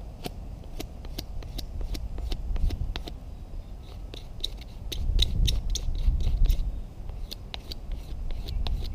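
A knife blade scraping and shaving at a piece of fungus in a string of short, irregular scrapes, busiest in the middle, with clicks from a small crackling wood fire and wind rumble on the microphone.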